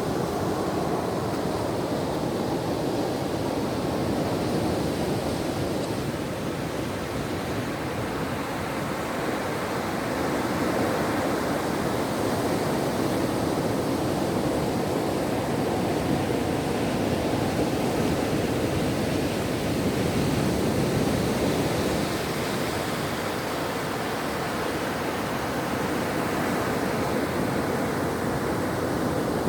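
Ocean surf: a continuous wash of waves on a shore, slowly swelling and easing in loudness.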